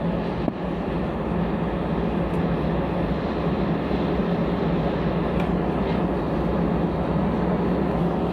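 Airliner cabin noise: the jet engines and airflow making a steady rush with a low, even hum underneath.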